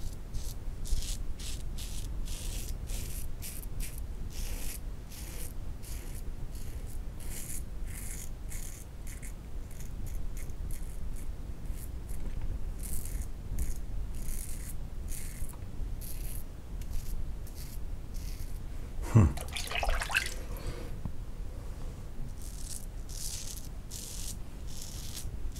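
Yunost safety razor scraping through lathered stubble in many short, scratchy strokes with brief pauses between them. About three-quarters of the way in, a short sound slides up in pitch and is the loudest thing heard.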